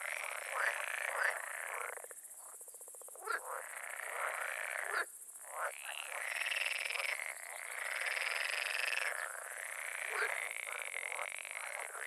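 Marsh ambience of many frogs croaking in chorus, with a steady high hiss above it. The chorus changes abruptly a few times.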